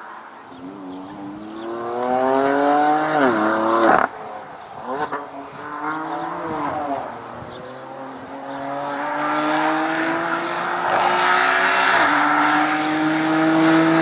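BMW race car engine accelerating hard, its note climbing in pitch and then dropping abruptly at each upshift, several times, the loudest climbs about four seconds in and again just before twelve seconds.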